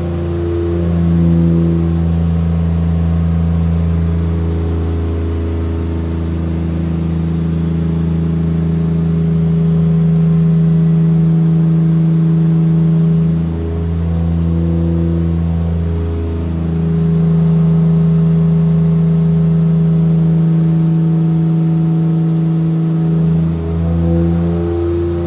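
BMW E30's M20B25 2.5-litre straight-six running at steady, raised revs, with a brief change in its pitch about fourteen seconds in and again near the end.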